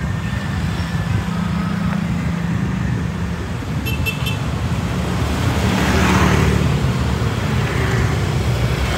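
Street traffic of motor scooters and cars driving past, a steady engine rumble and hum, with one vehicle passing close about six seconds in.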